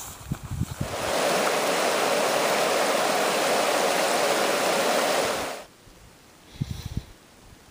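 A few footsteps on loose rock and scree, then a rushing creek over rocks, loud and steady for about four and a half seconds before it cuts off abruptly. Near the end come a few more footsteps on scree.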